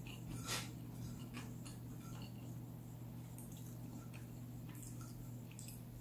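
Faint, scattered soft clicks and taps of fingers pressing and gathering cooked rice on a plate, the slightly louder one about half a second in, over a steady low hum.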